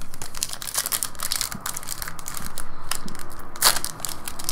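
Foil wrapper of a Panini Select soccer card pack crinkling and tearing as it is ripped open by hand, with a louder crackle about three and a half seconds in.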